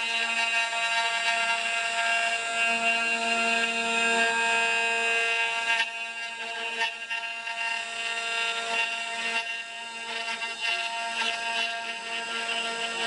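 CNC router spindle whining steadily as its cutter carves a wooden workpiece on a rotary axis, with a rough cutting noise under the whine. The sound shifts slightly about six seconds in and continues.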